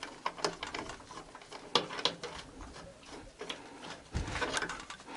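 Irregular light metallic clicks and taps of a hand wrench being worked on an engine-mount nut under a car, with a dull thump a little after four seconds in.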